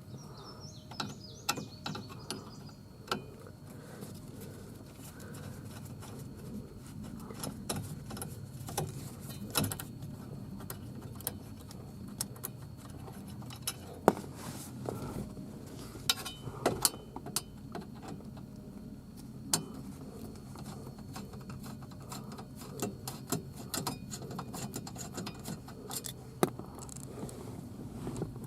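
Scattered light clicks, taps and rattles of hand tools and plastic trim as the screws of a steering column cover are taken out, with a faint low hum underneath.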